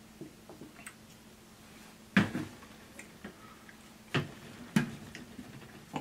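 Close-miked eating of crispy fried chicken: sharp crunches and mouth smacks, the loudest about two seconds in, more about four and five seconds in, over a faint steady hum.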